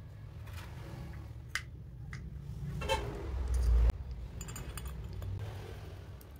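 Small metal clicks and clinks of motorcycle carburettor parts being handled and fitted together: the slide going back into the carburettor body and the top cover being seated. A dull low thump ending in a sharp knock comes just before four seconds in, followed by a quick run of light ticks, over a steady low rumble.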